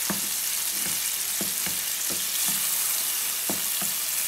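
Shrimp sizzling in hot oil in a frying pan, stirred with a wooden spatula that knocks and scrapes against the pan at irregular intervals over the steady sizzle.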